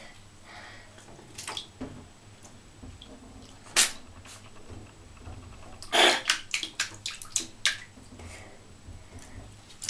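Water splashing in a bathtub as a cat plays in it: one sharp splash about four seconds in, then a quick run of splashes between about six and eight seconds, with quieter water sounds between.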